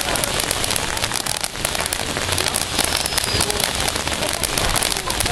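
Power Surge fountain firework burning: a steady hiss of spraying sparks thick with fast crackling.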